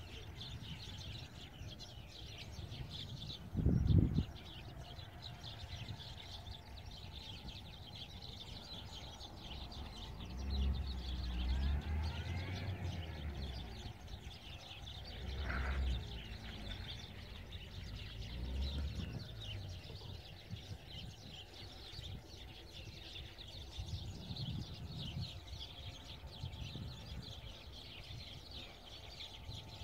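Small birds chirping continuously over outdoor background noise, with a short low thump about four seconds in and a few low rumbles later on.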